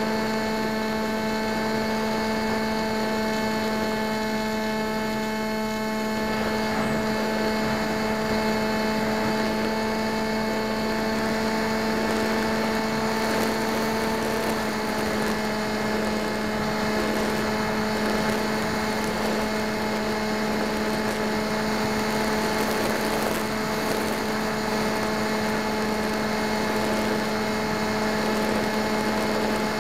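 FPV model plane's motor and propeller running at steady throttle, heard from the onboard camera as a constant whine with several steady overtones over a rushing hiss. The pitch shifts slightly about halfway through.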